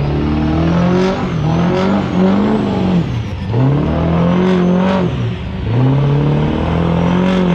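Pickup truck engine revving hard during a burnout, the pitch climbing, holding and dropping back about four times while the rear tyres spin.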